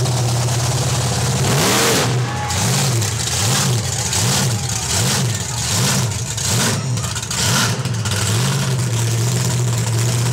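Bigfoot monster truck engine idling, then revved up and down about eight times in a quick even rhythm as the truck climbs onto and crushes an old sedan, before settling back to a steady idle near the end.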